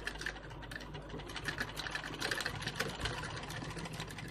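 Black domestic sewing machine running steadily, its needle clicking rapidly through blouse fabric as it sews a temporary basting (tacking) seam.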